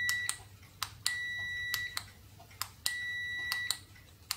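Multimeter continuity beeper giving a steady high beep about a second long each time the flashlight's tail-cap switch is clicked closed across the test probes, with a sharp switch click at the start and end of each beep. The switch closing the circuit sets off the beep: the end of one beep just after the start, then two full beeps.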